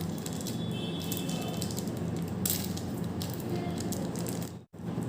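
Light handling noise from unpacking: small rustles and clicks of packaging and earphone ear tips being handled, over a steady low hum.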